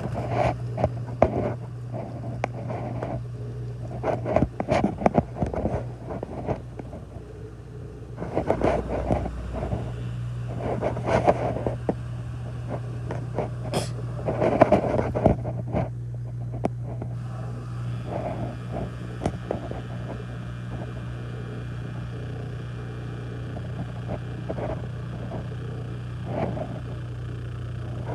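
Samsung dishwasher drain pump running with a steady low hum, which changes briefly about nine seconds in. Irregular noises come over it in the first half, and a steadier hiss in the second half.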